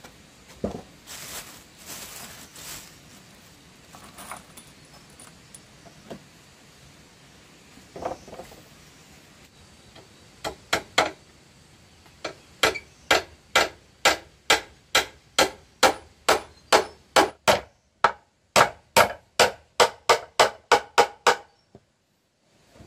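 A hammer driving nails into wooden planks: a run of sharp strikes, about three a second with short pauses, starting about ten seconds in and stopping near the end. Before that come a few scattered knocks and rustles.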